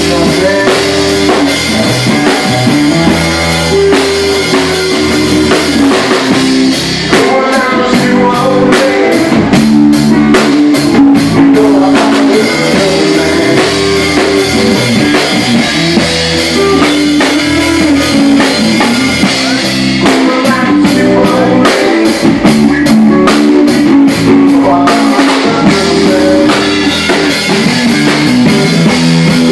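Live rock band playing loudly: guitar with a drum kit keeping a steady beat.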